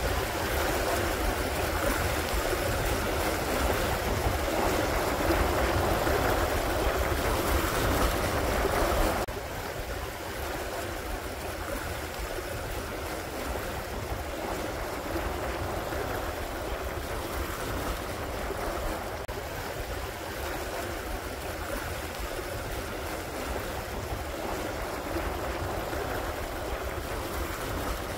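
Water rushing along the hulls and churning in the wake of a Neel 52 trimaran under sail at about 7 knots, mixed with wind. Steady, louder for the first nine seconds, then dropping abruptly to a lower level.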